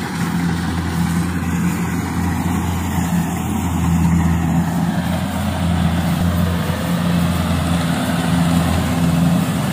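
Rice combine harvester's diesel engine running steadily up close: a loud, even low drone.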